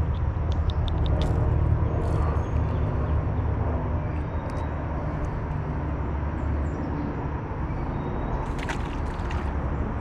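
Steady low outdoor rumble, with small sharp clicks in the first second or so as the hooks of a small plastic topwater lure are worked out of a sunfish's mouth, and a brief splash about a second before the end as the released sunfish drops back into the creek.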